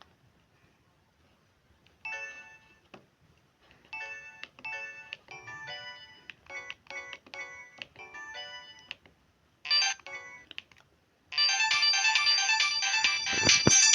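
Samsung SGH-M610 mobile phone playing electronic ringtone melodies through its speaker: about two seconds of quiet, then snatches of tune broken by short pauses, and from about 11 seconds in a much louder, fuller ringtone.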